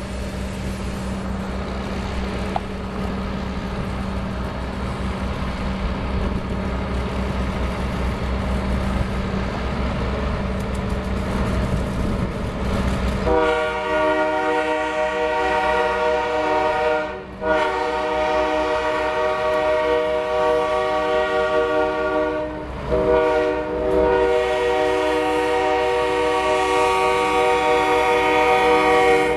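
Diesel locomotive engine rumbling steadily as it approaches. About halfway through, its air horn starts blowing in long sustained blasts, broken twice by short gaps.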